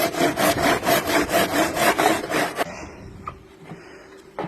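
A hand tool scraping back and forth in quick, even strokes, about five a second, like sawing or filing, on a part of a washing machine under repair. The strokes stop about two and a half seconds in.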